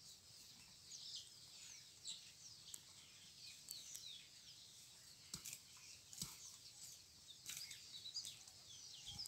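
Faint chirping of many small birds, with short falling calls coming and going, and three soft knocks in the second half.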